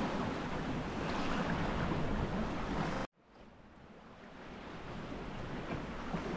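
Wind on the microphone and water rushing and splashing past the hull of a small sailboat under way in choppy water. About halfway through, the sound cuts out abruptly and then fades back in.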